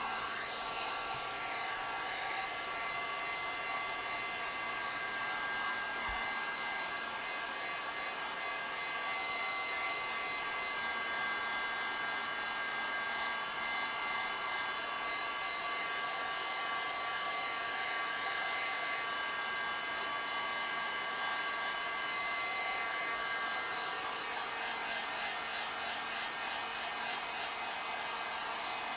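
Handheld heat gun blowing hot air steadily over a freshly washed graphics card circuit board to dry off the alcohol and water. It makes an even rush of air with a thin whine over it that fades about three quarters of the way in.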